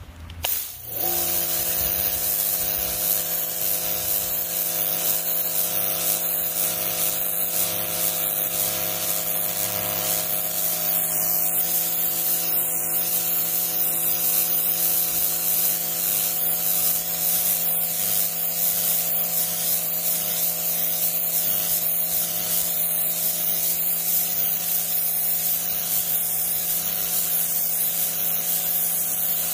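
Karcher K3.91 electric pressure washer kicking on about a second in. Its motor and pump then run with a steady hum under the loud hiss of the water jet blasting concrete.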